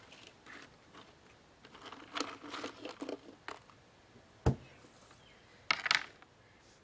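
Hardshell clams being handled and set down on a wet plastic tray: scattered rustling and light clicks, one dull thump about halfway through, then a quick cluster of sharp shell clicks near the end.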